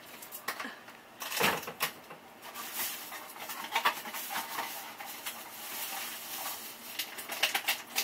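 Household handling noise close to the microphone: scattered clicks, knocks and rustling, with a louder thump about a second and a half in.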